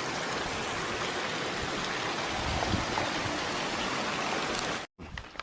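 Steady rush of a waterfall, water pouring over rocks in an even hiss that cuts off suddenly near the end.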